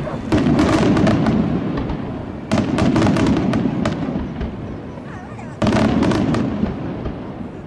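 Aerial fireworks display: three loud shell bursts about two to three seconds apart, each followed by a dense crackling and a rumble that fades away.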